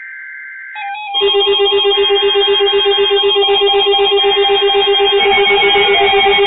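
Weather alert radios being set off by a NOAA Weather Radio alert. A short burst of the digital alert header's two data tones, then about a second in several receivers' electronic alarms start together: rapid pulsing beeps under warbling tones, sounding without a break.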